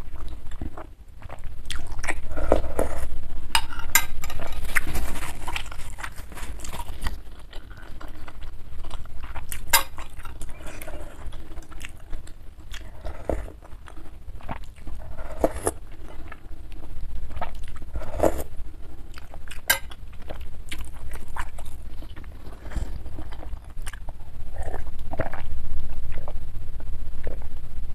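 Metal spoon clinking and scraping in a ceramic bowl as spicy soup broth is spooned up and slurped, with sharp clinks every few seconds. Near the end, swallowing while drinking from a glass mug.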